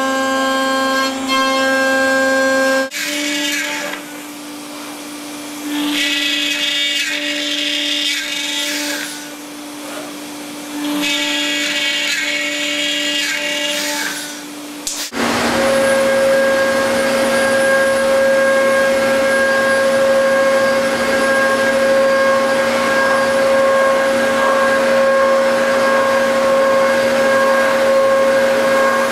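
CNC router spindles whining at a steady pitch while cutting, in three takes: an end mill machining aluminum plate, then a 5-axis head machining a block with cutting noise in bursts, then a router bit cutting wood with a constant loud rush of cutting noise and a lower whine.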